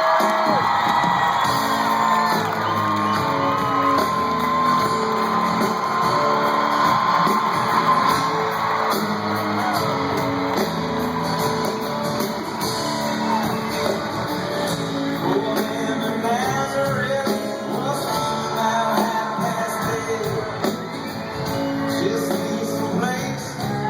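Live rock band playing with singing, the audience shouting and whooping along, heard as an echoing, loud concert recording.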